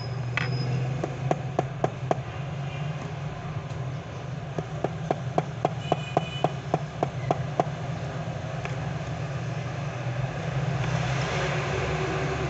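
Sharp little clicks of a small metal watch case being handled on a workbench: a few around a second in, then a regular run of about a dozen, some four a second, from about five seconds in. A steady low hum runs underneath.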